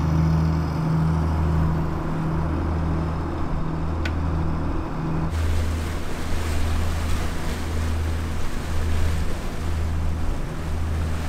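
A boat's diesel engine running steadily under way, a low hum that swells and fades slightly in a slow pulse, with wind and water hiss over it; about five seconds in the hiss gets louder.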